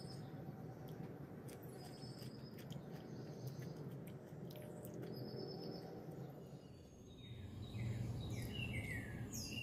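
Small birds chirping: short high trills a few times, then a quick run of short falling chirps near the end, over a steady low background rumble with a few faint clicks.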